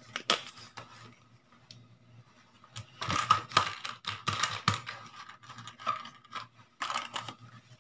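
Irregular small clicks, taps and rustles of a blood glucose test kit's plastic parts being handled, coming in clusters and loudest about three to five seconds in.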